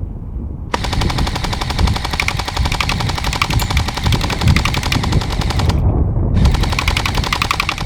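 Airsoft M4 electric gun (AEG) firing on full auto in two long bursts of rapid clicking, with the gearbox motor whining steadily under the shots. The first burst lasts about five seconds, then a brief pause, then a second burst. Low wind rumble on the microphone sits underneath.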